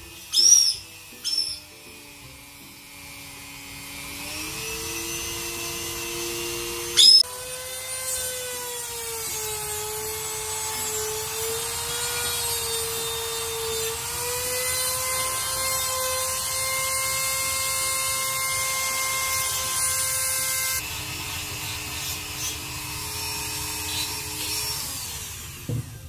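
A caique squawks twice, then a Dremel rotary tool with a grinding stone spins up and runs with a steady whine whose pitch wavers as it grinds the parrot's nails. There is a sharp click about seven seconds in, and the motor's pitch drops around twenty-one seconds in.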